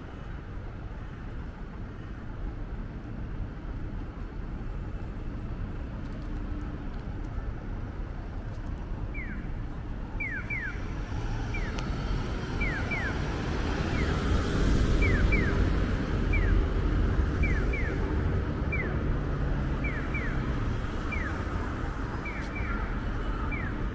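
City street traffic rumbling steadily, swelling as a vehicle passes about two-thirds of the way through. From about nine seconds in, short high chirps repeat, often in pairs.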